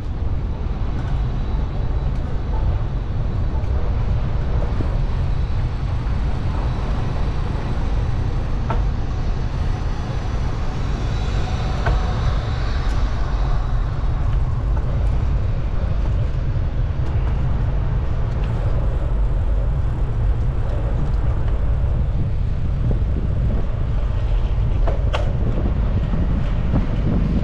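Steady low rumble of wind on the microphone of a moving bicycle, with road and traffic noise behind it.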